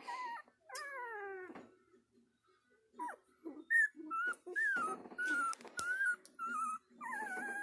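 Eleven-day-old Border Collie puppy whining and crying: a falling cry about a second in, then a string of short high whines, and another falling cry near the end.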